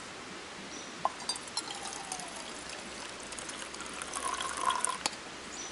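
A light metal clink about a second in. Near the end, liquid is poured from a metal cook pot into a metal camp mug for about a second and a half, stopping with a clink.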